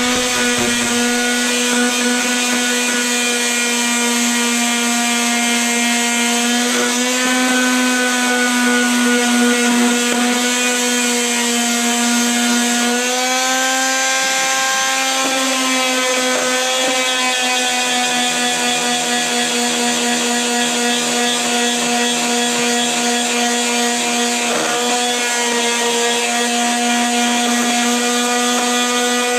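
Electric pad sander with 100-grit paper running steadily over the wooden corner joints of a door frame, a steady motor hum with a sanding hiss. Its pitch wavers slightly a few times.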